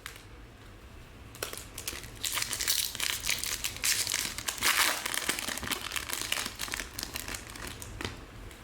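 Topps Chrome trading card pack wrappers being crinkled and torn open: a dense crackling that starts about a second and a half in and carries on.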